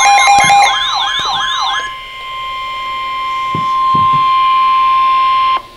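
Electronic alert tones: rising-and-falling siren-like sweeps over a steady tone for about two seconds. Then the NOAA Weather Radio 1050 Hz warning alarm tone sounds alone, swelling in level and cutting off abruptly near the end, the signal that a warning message follows.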